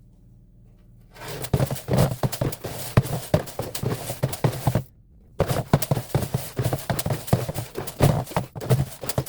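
Dry chicken feed of grain, seeds and split peas being stirred and tossed, a dense rattling rustle full of small clicks. It comes in two spells, with a short pause about five seconds in.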